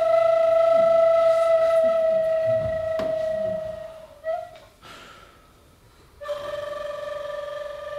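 Small end-blown wooden flute playing slow held notes: one long note, falling very slightly over about four seconds and ending with a brief upward flick, then a pause of about two seconds and a second, slightly lower long note with a gentle waver.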